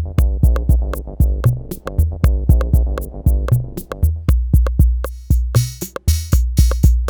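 Arturia DrumBrute analog drum machine playing a steady beat with kick and percussion hits, over a synth bass line. About five seconds in a hissy cymbal or hi-hat part joins.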